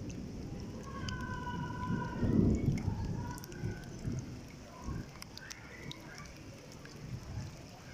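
Monsoon rainstorm: rain with a low rumble that swells about two and a half seconds in and then fades. A faint held tone is heard from about one to three seconds in.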